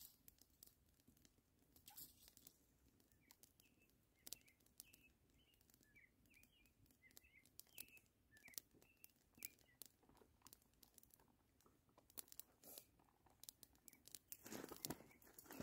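Faint crackling of a small campfire, with scattered pops, and faint high chirps of a small bird between about three and ten seconds in. A louder scuffing comes near the end.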